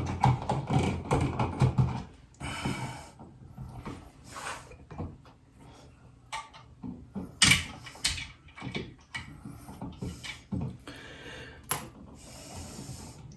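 Hand work on the wiring of a wall switch while attaching its ground wire: scattered irregular clicks and taps with a few short scraping, rustling noises.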